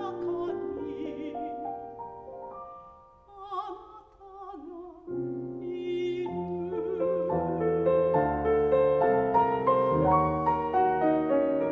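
A soprano sings with a grand piano accompanying. About three seconds in the music thins to a soft phrase, then the piano comes back in and builds to a loud passage, carrying on alone near the end.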